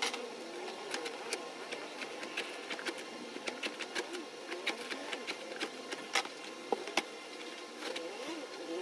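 Irregular light clicks and knocks of divider panels being slid into the slots of a hard plastic case and tapped into place.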